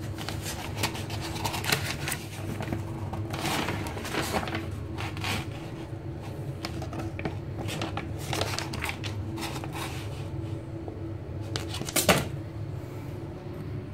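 Paper pages of a pump manual rustling and being handled, in scattered crackly bursts over a steady low hum, with one sharp knock near the end.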